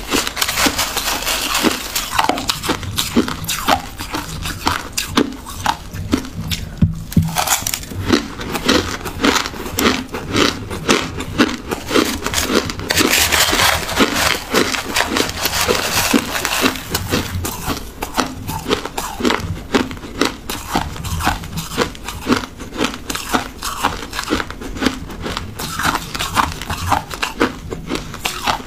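Crushed ice being chewed: a dense, irregular run of crisp crunches and crackles with no let-up.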